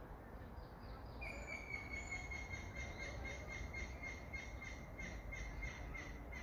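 A bird singing one long song of about five seconds, starting about a second in: a steady high whistled note with a quick run of repeated notes above it.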